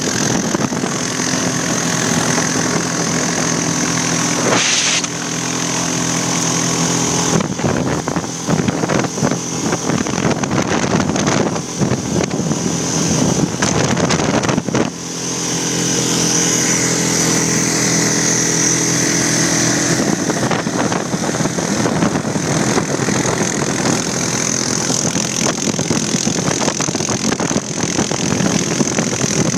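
Snowmobile engine running steadily at speed over lake ice, with a constant hiss. The engine note drops briefly twice, about five and fifteen seconds in.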